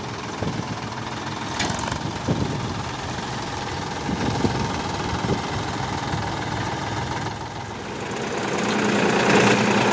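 Sonalika DI-35 tractor's diesel engine running steadily as the tractor slowly tows its loaded-down trolley, growing louder near the end.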